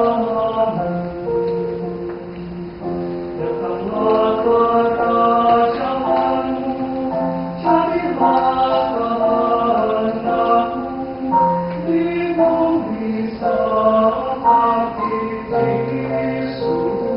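Mixed choir of men and women singing a hymn in harmony, with held chords that change every second or so.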